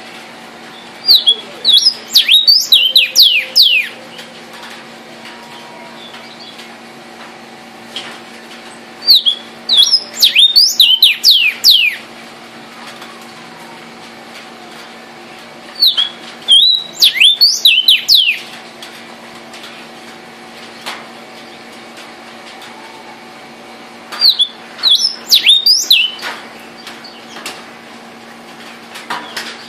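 Male vermilion cardinal singing four phrases about seven seconds apart, each a quick run of loud, clear, down-slurred whistles lasting two to three seconds.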